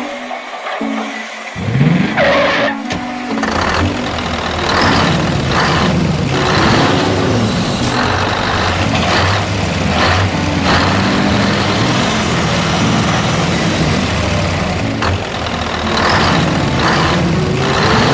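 A vehicle engine running, with repeated short hisses like air brakes, over background music.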